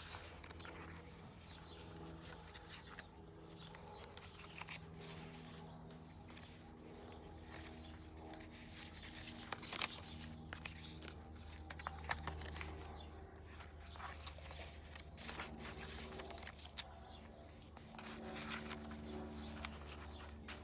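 Paper pages of a handmade journal rustling and crinkling as they are handled, with scattered light clicks and taps.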